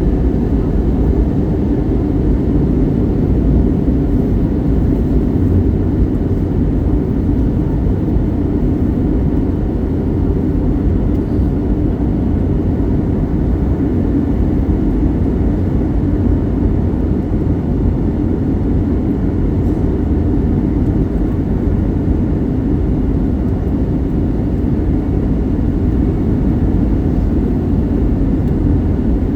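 Steady cabin noise of a jet airliner in flight, heard inside the cabin: an even, deep rush of engine and airflow that does not change.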